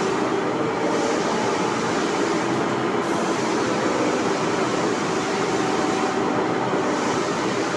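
Steady mechanical running noise of machine-shop machinery: a continuous rumble with a faint hum, without distinct knocks.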